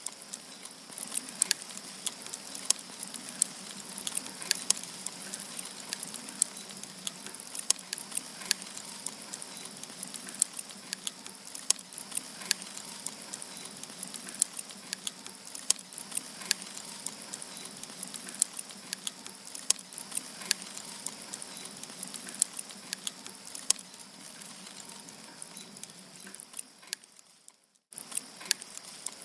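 Firewood burning in a campfire: irregular sharp crackles and pops over a steady hiss. The sound fades and breaks off briefly near the end, then resumes.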